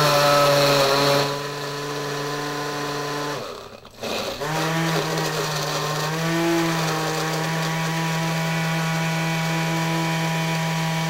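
Countertop blender motor running steadily as it blends ice and drink mix into a slush. It stops for a moment about four seconds in, then starts again and keeps running.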